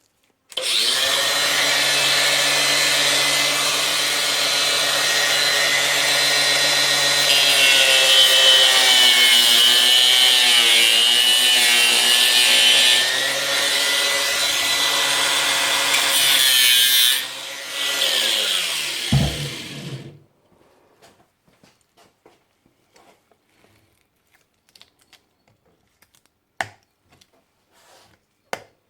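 Electric power tool running and cutting through the plastic top of a lead-acid car battery: a steady motor whine with a rasping cut, its pitch dipping and wavering as it bites. About nineteen seconds in the motor winds down and stops, and small clicks and handling noises follow.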